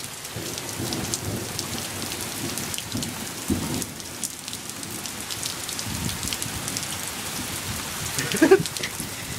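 Steady rain falling, with many individual drops ticking close by. A brief voice sound near the end.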